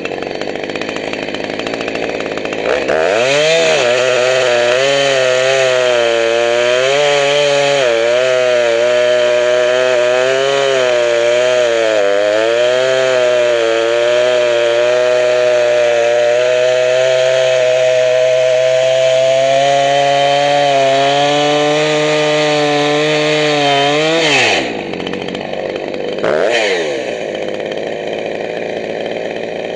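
Freshly rebuilt Husqvarna 359 two-stroke chainsaw (new cylinder, piston and carburettor) revving up to full throttle about three seconds in and cutting dry wood, its pitch wavering and dipping as the chain bites. About 24 seconds in it drops back to idle, with one short blip of the throttle a couple of seconds later.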